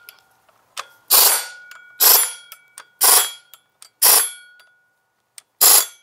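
Pneumatic air ratchet running in five short bursts, about a second apart, as it snugs down flywheel bolts; a faint metallic ring hangs between the bursts.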